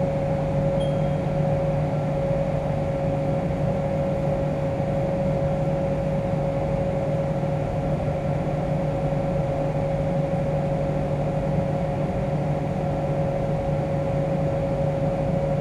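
Haas TM-1P CNC toolroom mill running with its spindle turning an edge finder: a steady low hum with a constant whine above it, unchanged throughout.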